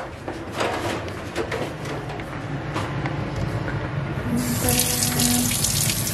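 Light knocks and clinks of items handled at a stainless steel kitchen sink, then about four seconds in a kitchen tap is turned on and water runs into the sink.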